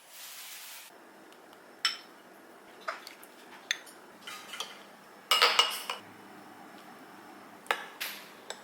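Utensils clinking against dishes: a series of sharp, briefly ringing clinks, the loudest cluster about five seconds in and a few more near the end.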